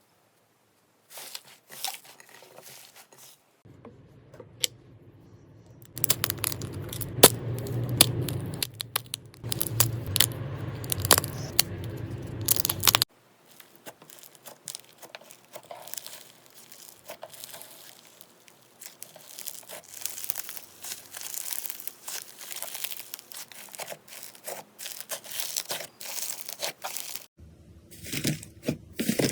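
Slime being squeezed, stretched and pulled apart by hand, with irregular crackling, crinkling and tearing sounds. It comes in several stretches that change abruptly, and it is loudest from about six to thirteen seconds in.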